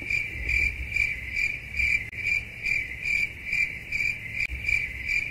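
Cricket chirping sound effect, a steady high chirp repeating about twice a second: the stock comedy cue for an awkward silence.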